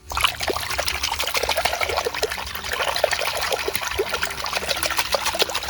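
Water running and splashing over a dirt-covered toy cow as it is washed, with a dense patter of drips. The sound starts suddenly and holds steady.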